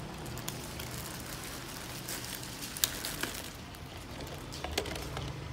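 Scattered light clicks and taps of plastic cups and utensils being handled on a table, over a steady low background hum; the sharpest click comes about three seconds in.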